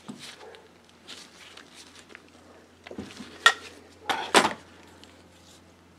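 Metal hand-tool clinks and clanks as a wrench is taken off a bolt on a Model A starter drive and put down, with a sharp clink about three and a half seconds in and a clatter just after four seconds.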